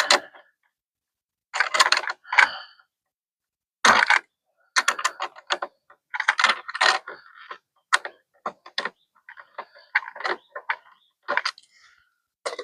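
Hand ratchet wrench clicking in short runs of quick clicks, stopping and starting, as fasteners are worked loose.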